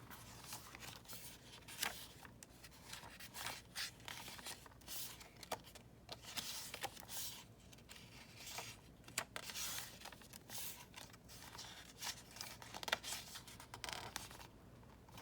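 Paper and cardstock pages of a handmade junk journal being turned and handled: irregular soft rustles and flicks of paper.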